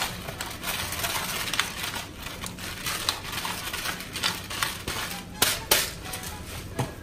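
A pepper grinder crunching black peppercorns in a run of irregular clicks, with two louder clicks about five and a half seconds in, over the faint sizzle of sofrito frying in the pan.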